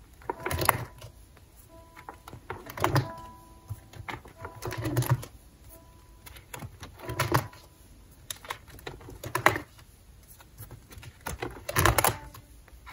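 Clear plastic photocard binder pages being turned one after another, each a crinkling rustle with a soft thump as the page lands; about six turns, roughly one every two seconds.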